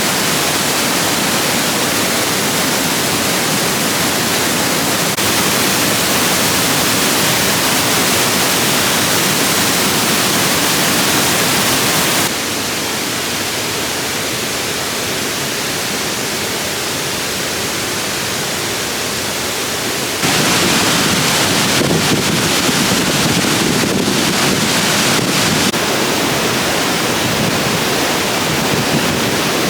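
Waterfall: loud, steady rush of falling water. Its level and tone shift abruptly twice, dropping about 12 seconds in and rising again about 20 seconds in.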